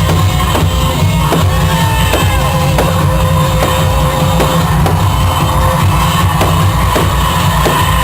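Loud rock-style show music with a drum kit keeping a steady beat.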